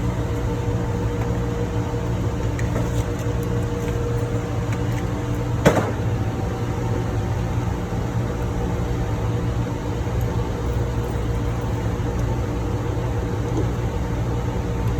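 Steady drone of ship's engine-room machinery, a low hum with several steady tones held over it, broken by one sharp click about six seconds in.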